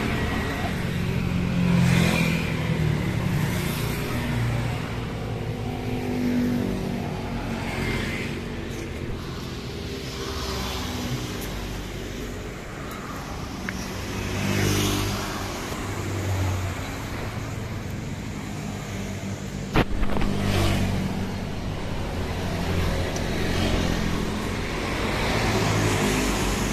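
Road traffic: motor vehicles passing one after another, their engines swelling and fading, with a single sharp knock about twenty seconds in.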